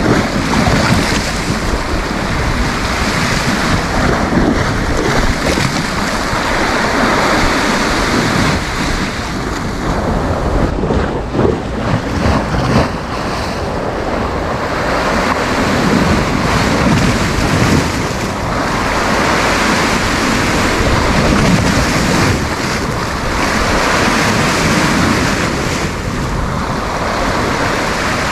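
Sea surf breaking and washing up the beach in a continuous rush that swells and eases every few seconds, with wind buffeting the microphone.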